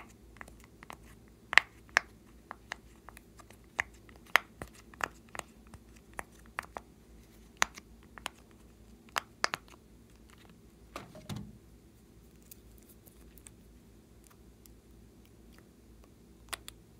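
Silicone pop-it fidget toy bubbles being pressed in by fingers, giving a run of sharp, irregular pops for the first ten seconds or so. A duller knock follows, then only soft handling with a couple of faint clicks near the end.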